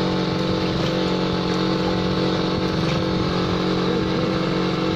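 An engine running steadily at constant speed, an even low drone with no change in pitch.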